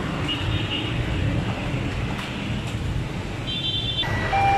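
Steady road traffic noise from a busy street. Short high tones sound about half a second in and again near the end, and a louder steady horn-like tone starts about four seconds in.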